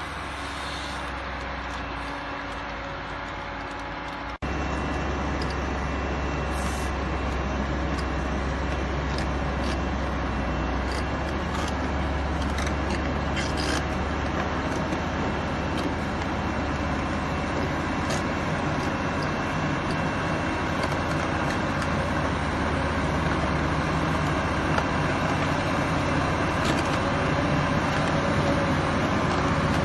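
Heavy diesel machinery running steadily, a dense engine-and-traffic-like noise. The sound changes abruptly and gets louder a few seconds in.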